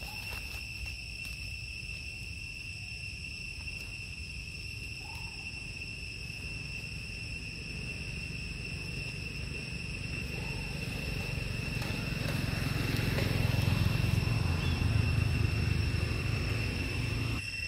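Steady high-pitched insect drone: one constant tone with a fainter overtone above it. A low rumble swells in the second half and cuts off suddenly near the end, and there are a few faint short chirps.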